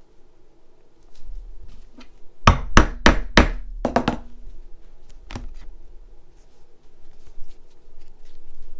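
Mallet striking a metal leather-stitching punch through hippo leather, punching the stitch holes: a quick run of about six sharp strikes, then one more a second later.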